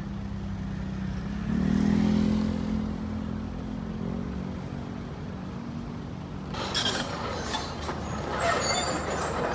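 Diesel engine of an excavator running, revving up under hydraulic load about a second and a half in and settling back. From about six and a half seconds stones clatter and knock loudly over the engine.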